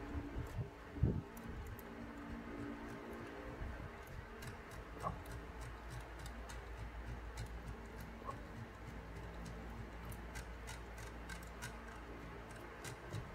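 LEGO Technic winch gears clicking irregularly as the hand-of-god knob is turned to reel in the winch string, with one thump about a second in.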